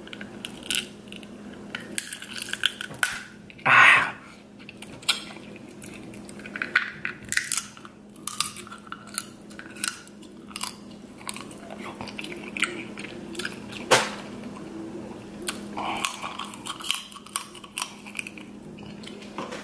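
King crab leg shell being bitten and cracked open with the teeth, with chewing in between: many short crunches and cracks, the loudest about four seconds in and again near fourteen seconds.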